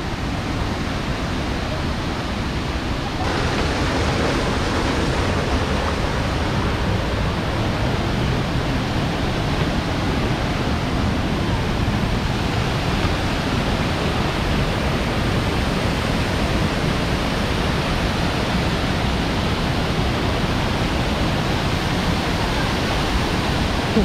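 Steady rush of falling water from a tall waterfall, a little louder after about three seconds.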